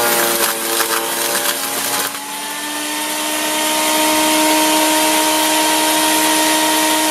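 Sun Joe CJ602E 15-amp electric wood chipper shredder running with a steady high whine. For about the first two seconds there is the rough noise of wood being chipped. Around two seconds in the motor's pitch dips under the load, then climbs back to full speed over the next couple of seconds.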